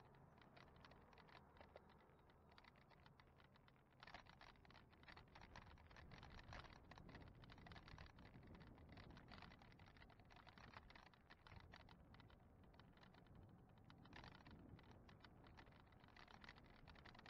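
Faint, irregular clicking and rattling, denser from about four seconds in: a bike-mounted camera and its mount shaking over the road as the e-bike rides.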